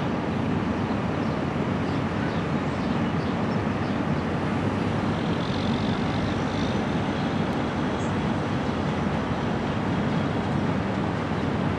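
Farm machinery running steadily, a constant mechanical din.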